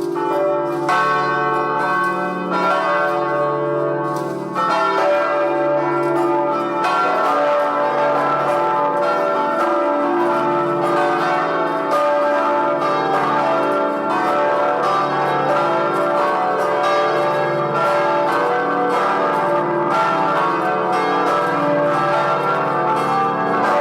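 Large church bells of the Vilnius Cathedral belfry ringing together, their strokes overlapping into a dense, continuous peal with long ringing tails. The peal grows louder and fuller about four and a half seconds in.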